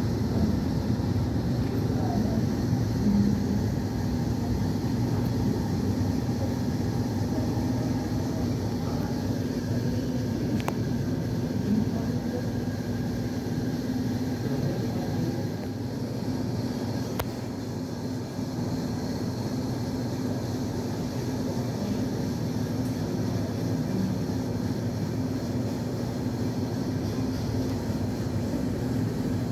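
Steady low rumble of vehicle engines with a constant low hum and no distinct events.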